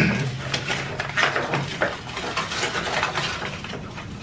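Rustling and light irregular clicking of a coiled white power cable being unwound from its paper wrapping and handled on a table. A short hummed voice sounds right at the start.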